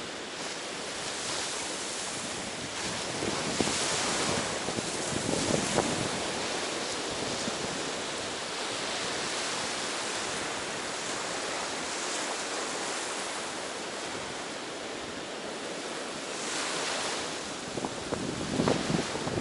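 Ocean surf breaking and washing onto a beach, a steady rush that swells louder every few seconds as waves come in.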